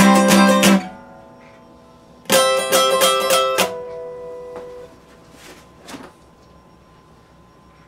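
Epiphone acoustic guitar strummed in two short, fast bursts, each a little over a second long, with the chord ringing on after each burst.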